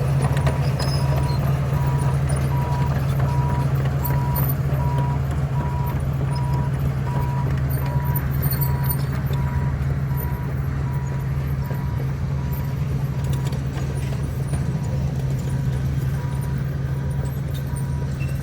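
Heavy diesel earthmoving machinery running steadily with a deep engine rumble. A reversing alarm beeps at an even on-off rate throughout, and there are light scattered clanks.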